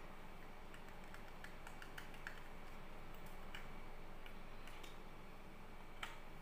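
Light plastic clicks and ticks from fingers handling a Cadbury Dairy Milk Lickables plastic cup and its lid. A quick run of small ticks comes about a second in, scattered clicks follow, and a sharper click comes near the end.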